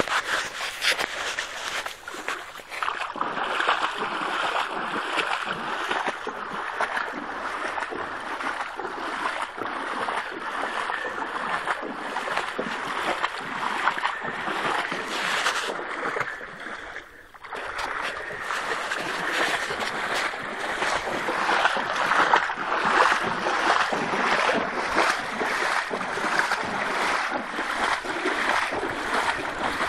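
Rain-fed flood water rushing and splashing, a loud continuous rush full of irregular splashy crackle that dips briefly past the middle.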